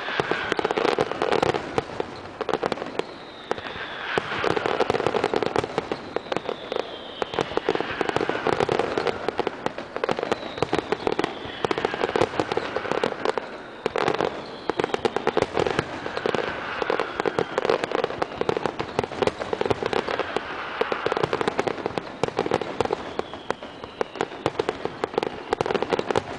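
Fireworks display going off continuously, with dense rapid crackling and popping. A high falling tone sounds every two to three seconds.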